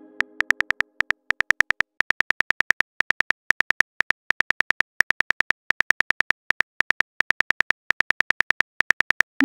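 Phone keyboard typing clicks from a texting-story app, a quick, uneven run of short taps, about six a second, as a message is typed out.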